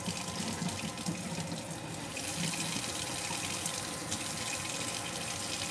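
Kitchen sink tap running steadily while a knife is washed under the water.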